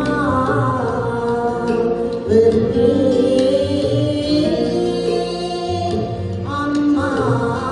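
A woman singing a Sinhala song live into a microphone, her voice in long, gliding held notes, over instrumental accompaniment with a low pulsing beat.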